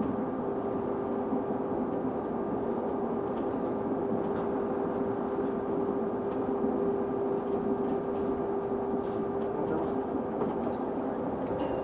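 A bus's odd noise: a steady whine held at one constant pitch over the running noise inside the bus, not rising or falling with speed. A short sharp click sounds near the end.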